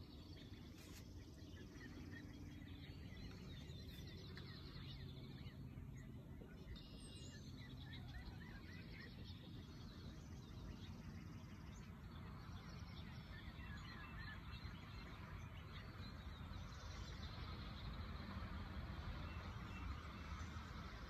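Month-old chicks and ducklings peeping faintly, many short repeated calls, over a low outdoor rumble.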